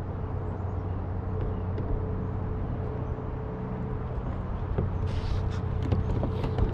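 A steady low hum runs throughout. About five seconds in come a brief splash and trickle with a few clicks, as a crab landing net is lifted out of the water.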